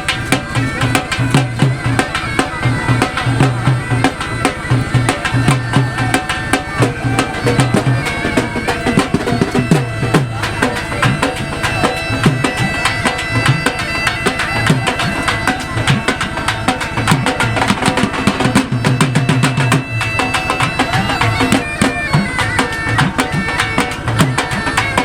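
Background music: a reedy wind-instrument melody over drums and percussion with a steady beat.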